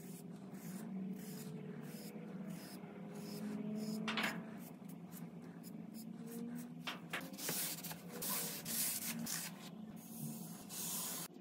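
Bristle brush stroking wood stain onto a grooved wooden panel: a run of short, scratchy brush strokes, coming faster in the second half.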